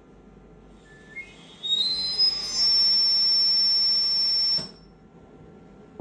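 Electronic alarm tone from an eVent Medical evolution 3e ventilator: a quick run of short beeps stepping up in pitch, then a loud, high steady tone held about two seconds that cuts off suddenly.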